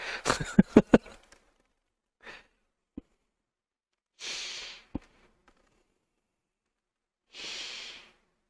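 A person breathing out twice in long, airy breaths like sighs, each under a second and about three seconds apart, with a few faint clicks in between. The last words of speech trail off about a second in.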